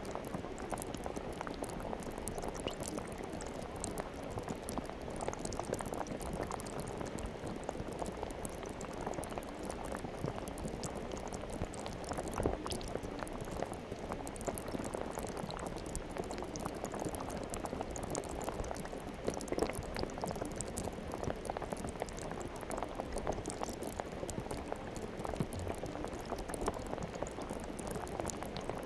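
Soft slime being squeezed and stretched by hands: a continuous stream of small wet clicks and pops.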